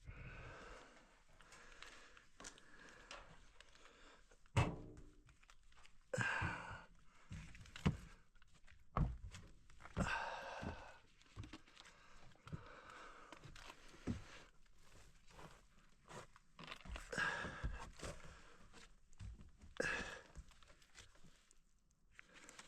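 Hand spray bottle of leak-detection solution squirted onto gas pipe fittings in several short hissing bursts, to check the joints for leaks. Scattered knocks and shuffling from moving about around the pipes come in between.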